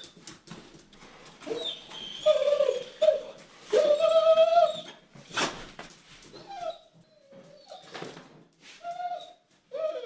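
A dog whining and whimpering: drawn-out cries that bend in pitch, the longest about a second each, followed by shorter whines, with scattered clicks and knocks between them.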